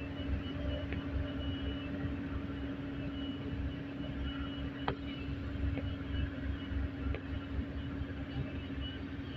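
Komatsu hydraulic excavator's diesel engine running steadily with a constant low hum, and a couple of faint sharp knocks near the middle.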